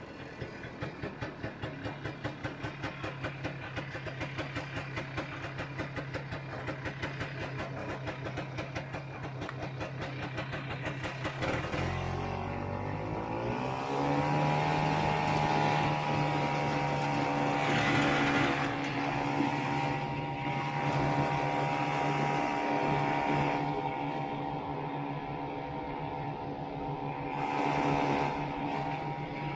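Vintage Ski-Doo snowmobile's two-stroke engine running at low speed with a pulsing beat, then revving up about twelve seconds in and holding a steady higher note as the sled picks up speed.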